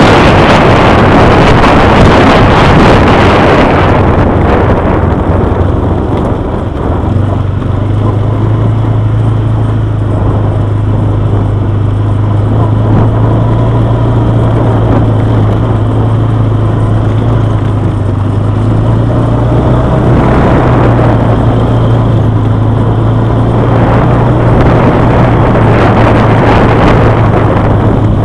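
Quad bike engine running steadily as it drives over a dirt track, with heavy wind noise on the microphone that eases off after the first few seconds.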